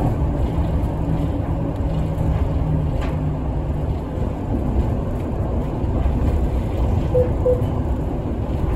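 City bus engine and road noise heard from inside the cabin, a steady low rumble. Two short tones sound about seven seconds in.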